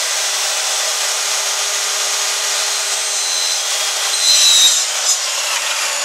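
Electric miter saw running at full speed and cutting through a board, a steady motor whine and sawing noise that swells louder about four seconds in.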